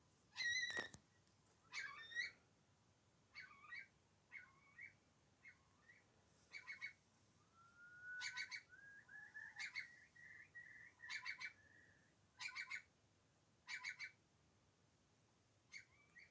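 Curlew calling: rising whistled notes and a series of short, rapid trilled phrases repeated a little over a second apart.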